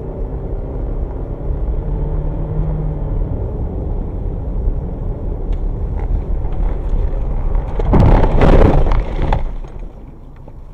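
Steady engine and road noise inside a moving car, then about eight seconds in a loud crashing rush of over a second as the car is hit and its windscreen is buried in snow, after which the sound drops away.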